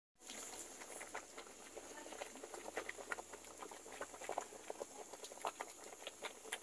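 Water boiling in a pot of cassava pieces, bubbling with a dense stream of small irregular pops.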